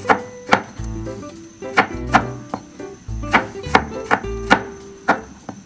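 Kitchen knife slicing garlic cloves on a cutting board: sharp chops at an uneven pace, about two a second. Background music with a steady bass plays underneath.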